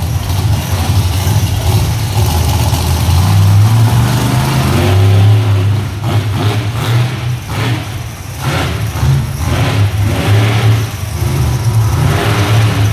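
Monster truck engine revving loud and low, swelling to its loudest about four seconds in, then rising and falling with the throttle.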